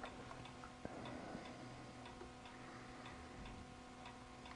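Faint, steady ticking at about four ticks a second over a low hum, with a single soft click about a second in.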